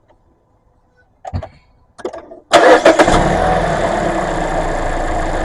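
Mazda CX-5's four-cylinder engine cranking and catching about two and a half seconds in, then settling into a steady idle on freshly changed oil. A thump and a short noise come before the start.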